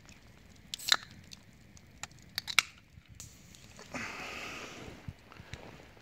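Wood campfire crackling, with a few sharp pops about one second and two and a half seconds in, then a brief crunching rustle about four seconds in.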